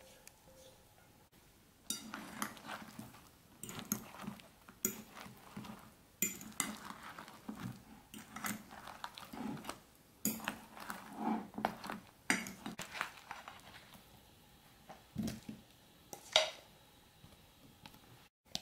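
Metal spoon stirring sauce-coated eggplant cubes in a ceramic bowl: irregular clinks and scrapes of metal on the bowl, starting about two seconds in and stopping a couple of seconds before the end.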